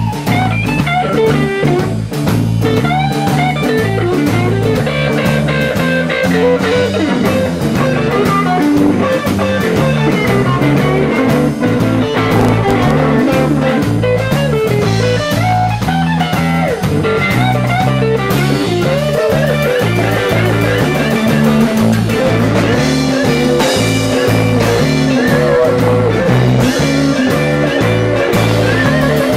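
Live instrumental blues: two electric guitars trading lead lines over a drum kit, played loud and steady throughout.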